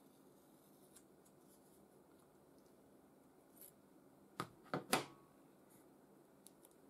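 Scissors handled over thermal adhesive tape: a few faint snips, then three sharp clacks close together a little past halfway through as the scissors are set down on the work surface. A couple of small ticks near the end.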